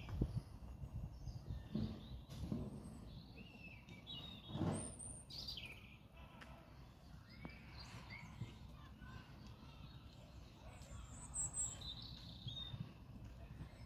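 Small birds chirping faintly here and there over a low outdoor rumble, with one brief louder noise about four and a half seconds in.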